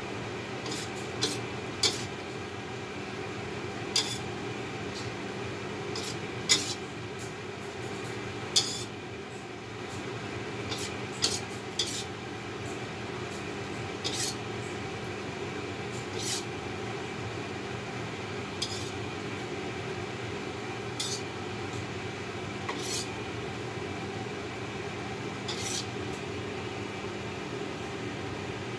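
A serving utensil clinking and scraping against a metal wok and a ceramic bowl as pasta is scooped out, with sharp clinks at irregular intervals over a steady low hum.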